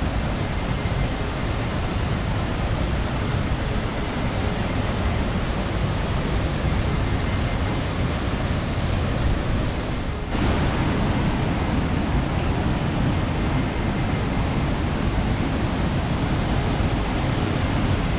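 Foster Falls' waterfall pouring heavily into its pool: a steady, even rush of falling water that briefly dips about ten seconds in.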